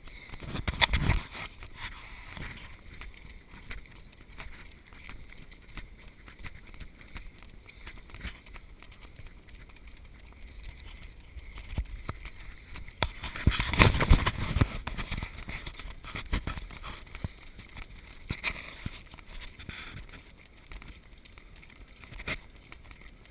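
Running footsteps on a dirt trail, heard as an irregular patter of knocks with rubbing from a body-worn camera. Louder stretches of rustling noise come about a second in and again around 13 to 15 seconds in.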